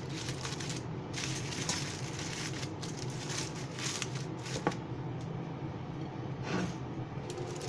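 Aluminium foil crinkling as it is folded and wrapped around a fish, with a few sharp crackles. A steady low hum runs underneath.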